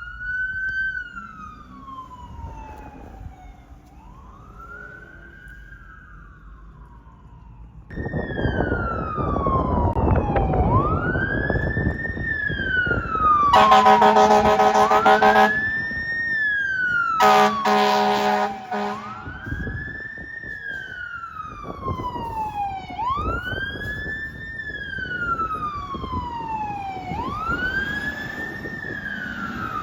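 Emergency vehicle wail sirens rising and falling about every four seconds, faint at first and then much louder from about eight seconds in, with heavy engine rumble as the fire engine comes by. The fire engine's air horn sounds two long blasts near the middle, and a second siren overlaps the first in the later part.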